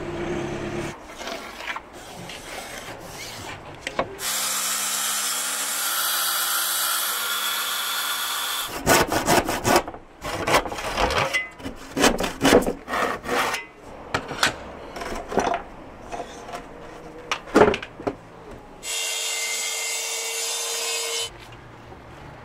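Hand saw cutting a laminate kitchen worktop in quick back-and-forth strokes, after light pencil scratching while the cut line is marked. The strokes come between two spells of a steady power-tool noise, one about four seconds in and one near the end.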